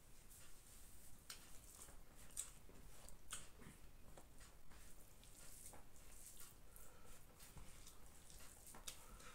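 Faint, irregular soft squishes and small clicks of a hand mixing biryani rice with gravy on a banana leaf.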